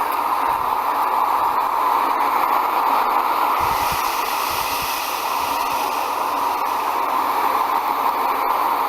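Ocean waves sound effect: a steady rushing noise, brightening a little about four seconds in.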